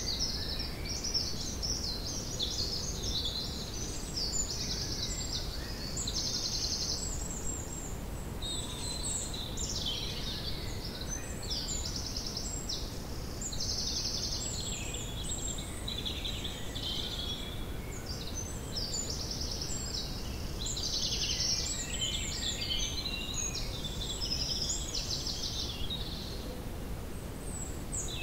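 Small birds singing continuously, with overlapping high chirps and rapid trills, over a steady low background rumble.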